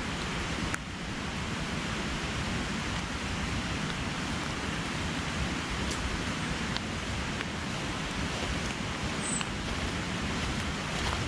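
Steady rushing wind through winter woodland, buffeting low on the microphone, with a faint tick or two.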